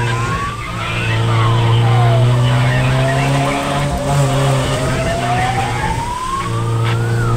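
Fire truck siren wailing, its pitch dropping about a second in, then climbing slowly for several seconds and starting to fall again near the end, over the steady drone of the truck's engine, heard from inside the cab.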